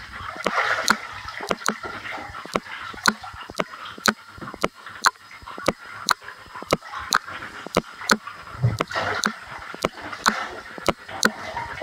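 Bathwater sloshing and splashing as a person in waterproof clothing and boots shifts about in a filled bathtub, with many sharp, irregular clicks and taps, about two a second.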